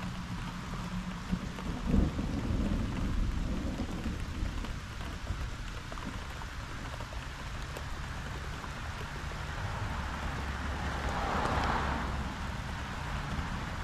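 Rain falling steadily during a thunderstorm, with low thunder rumbling underneath. A short sharp thump about two seconds in, and the hiss swells briefly near the end.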